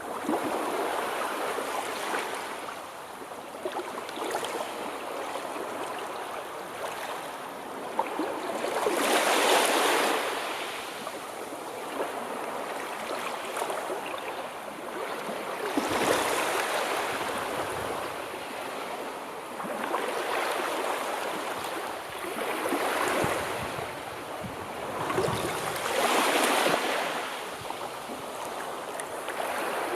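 Sea waves washing in, a steady wash of surf that swells into a louder surge every three to six seconds.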